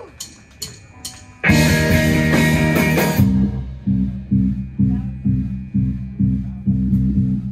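Live rock band starting a song. A few sharp clicks come first; about a second and a half in, the full band hits with crashing cymbals. After about two seconds it settles into a bass guitar and drum groove with a steady beat, about two notes a second.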